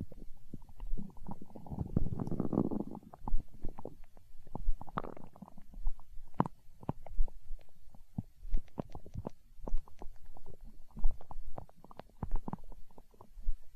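A human stomach growling. A long gurgling rumble comes about two seconds in and a shorter one around five seconds, then a run of quick little gurgles and pops. Soft low thumps sound underneath about once a second.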